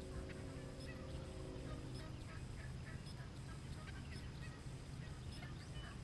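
Turkeys yelping and clucking in short, scattered calls over a steady low rumble of wind on the microphone. A steady low hum with several tones sounds under them and stops about two seconds in.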